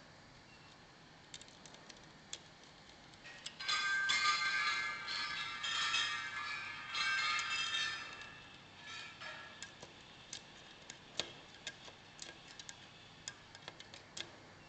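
Metal tool scraping and squealing against a curtain track for about four seconds, beginning about three and a half seconds in. Before and after it come light clicks and taps of hand tools and small fittings on the track.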